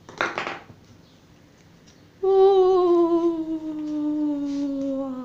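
A person humming one long note that slowly slides down in pitch, starting about two seconds in. It comes after a brief breathy sound at the very start.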